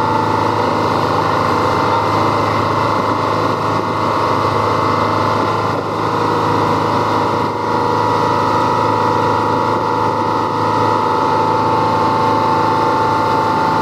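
Engine of a cruise ship's tender boat running steadily under way, with a steady high whine and the wash of water along the hull.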